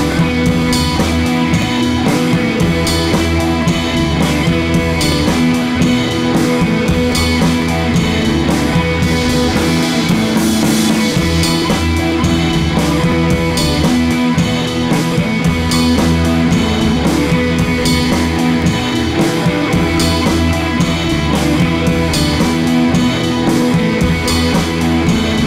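Background music: rock-style music with guitar and drums and a steady beat.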